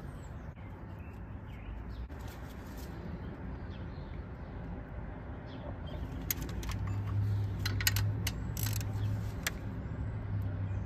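Hand tools clicking and clinking on metal as the bolts of a thermostat housing are run in, with a cluster of sharp clicks in the second half, over a steady low hum.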